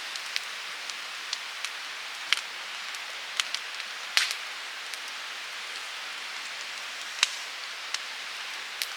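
Wood fire in a campfire stand crackling: a steady hiss with sharp, irregular pops and snaps, the loudest about four seconds in.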